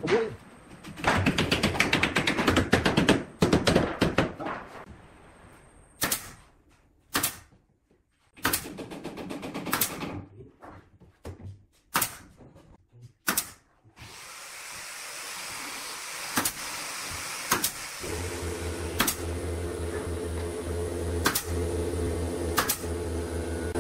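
Pneumatic nail gun firing nails into a wooden slatted shelf, one sharp crack at a time about a second apart. Before the nailing, wood knocks and clatters as the slats are handled. In the later part, a steady hiss and then a low hum run under the shots.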